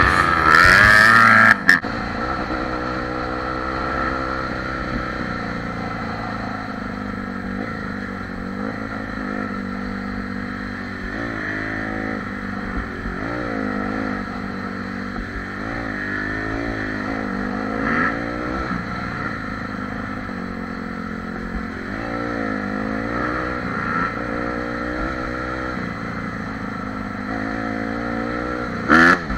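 Honda CRF dirt bike engine running under way on a trail, its pitch rising and falling as the throttle is opened and closed several times.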